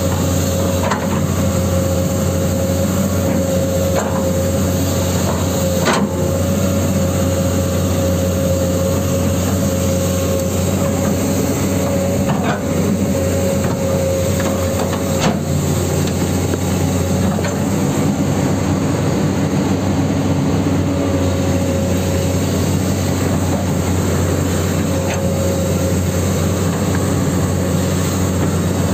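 Huina 1594 RC excavator travelling on its tracks: a steady electric motor and gearbox drone with a constant high whine, and a few scattered clicks from the tracks.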